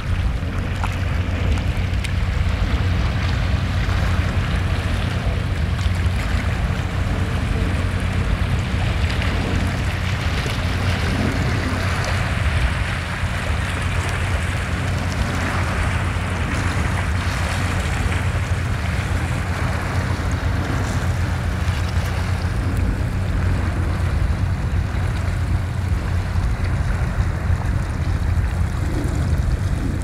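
Wind buffeting the microphone with a steady low rumble, over small sea waves washing gently against a rocky shore.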